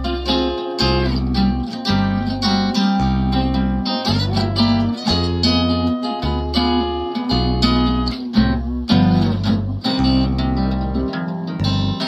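Instrumental introduction on acoustic guitar, plucked and strummed, with deep low notes underneath that change about once a second.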